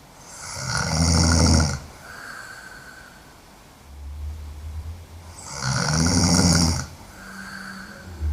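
A woman snoring hard in her sleep: two loud snores about five seconds apart, with quieter breaths between.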